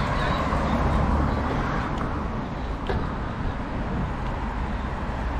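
City road traffic: a steady wash of passing cars with a deep, low rumble. A couple of short clicks come about two and three seconds in.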